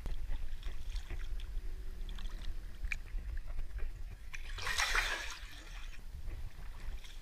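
Water splashing and sloshing as a small bass is released by hand back into the water, with the brief loudest splash a little past halfway through.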